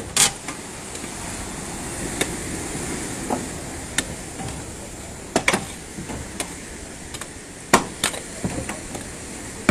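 Crowbars and hammers striking and prying at wooden deck planks being torn up: irregular sharp knocks and cracks a second or more apart, loudest near the start and about three-quarters of the way through, over a steady rush of surf.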